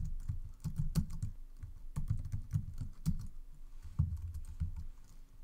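Typing on a computer keyboard: a quick, irregular run of keystrokes that thins out near the end.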